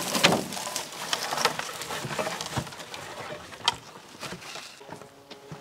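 A wooden greenhouse frame being dragged out of dry undergrowth: wood knocking and creaking, with dry stems cracking and rustling. One sharp crack stands out near the end.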